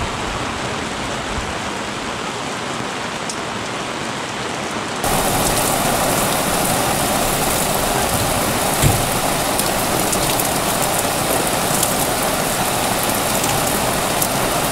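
Heavy rain pouring down on the lake and boat, a steady hiss of falling water with fine patter of drops; it grows louder and brighter about five seconds in. A single brief low thump comes near the middle.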